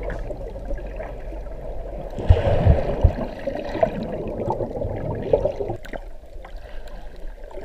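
Muffled underwater rushing and gurgling of air bubbles streaming around a diver, as picked up underwater. A few low thumps come about two to three seconds in.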